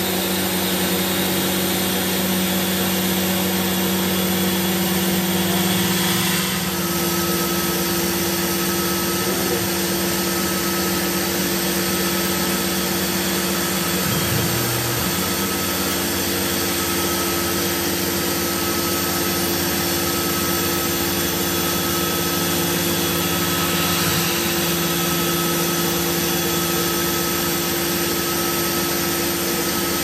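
CNC milling machine spindle running, with a ball end mill cutting a scrap aluminium plate. A steady hum sits over a constant hiss of mist coolant sprayed at the cut, and the hum shifts slightly a few times as the toolpath changes direction.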